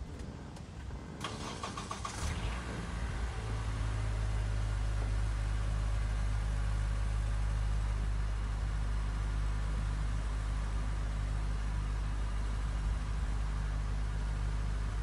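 An engine starts up a second or two in, then runs steadily at idle as a low, even hum.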